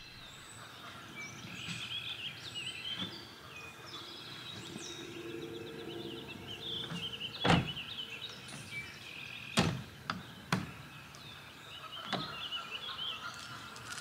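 Small birds chirping and singing throughout, over a few sharp thunks from the back of a pickup truck as gear is handled at its open tailgate: the loudest about halfway through, two more over the next three seconds, and a softer one near the end.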